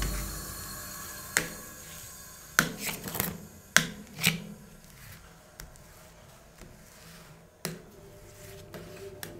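Metal spatula tapping and scraping against a stainless-steel rolled-ice-cream cold plate while working a frozen ice cream sheet: irregular sharp taps and clicks, several bunched together a few seconds in.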